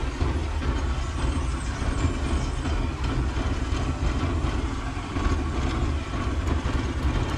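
Boat engine running steadily while the boat is under way, a deep, even rumble.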